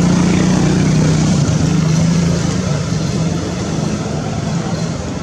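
An engine droning steadily over a background hiss, its pitch sinking a little as it slowly fades over the last few seconds.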